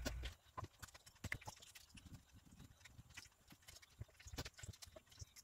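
Faint, irregular small clicks and taps of hands handling marinated sardines and laying them in a clay tagine dish. A low hum cuts off just after the start.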